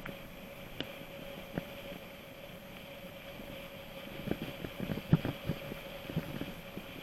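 Mountain bike rolling over rough ground with a steady hum, and sharp rattling knocks that bunch up about four to six seconds in.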